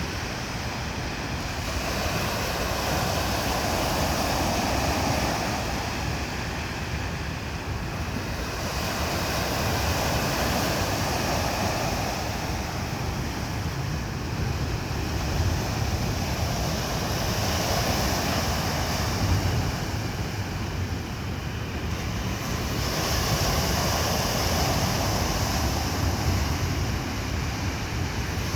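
Sea waves rolling in and washing up, swelling and fading about every six or seven seconds, over a steady low rumble.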